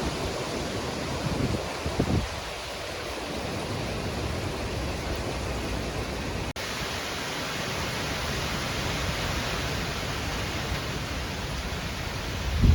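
Steady outdoor rushing noise of wind, with gusts buffeting the microphone now and then. The sound drops out for an instant about six and a half seconds in.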